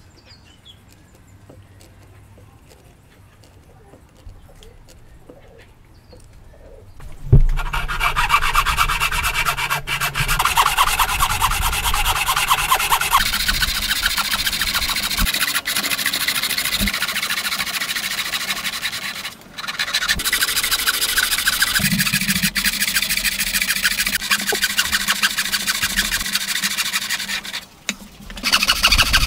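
A metal-framed hand saw cutting into a block of timber held in a vise: a steady rasp of back-and-forth strokes. It starts suddenly about a quarter of the way in, after a quiet stretch, and breaks off briefly twice.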